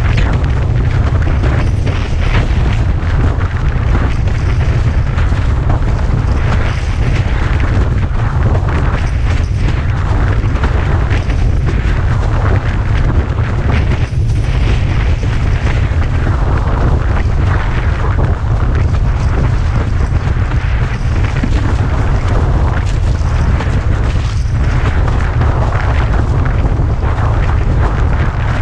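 Strong wind buffeting the camera's microphone on a windsurfer sailing at speed: a heavy, unbroken rumble, with water rushing and splashing against the board over it.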